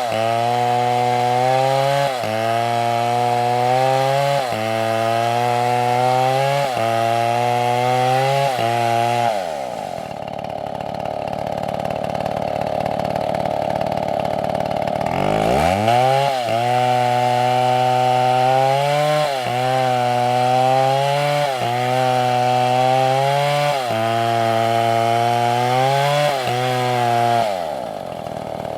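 Chainsaw engine running at high speed, its pitch dipping briefly about every two seconds. It winds down about ten seconds in, comes back up at about sixteen seconds with the same dips, and winds down again near the end.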